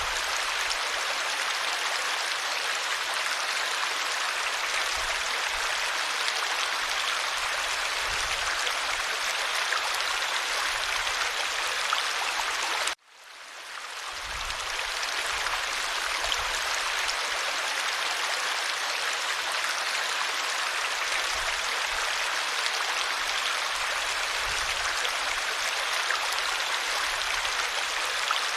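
Clear-water valley stream flowing with a steady rushing sound. About 13 seconds in it cuts out abruptly and fades back up within a second or so.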